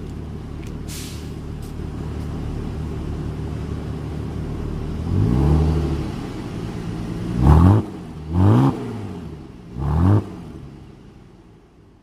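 Exhaust of a BMW E39 520i's 2.2-litre straight-six with the muffler deleted, heard at its twin tips. It idles steadily, revs once about five seconds in, then gives three quick throttle blips.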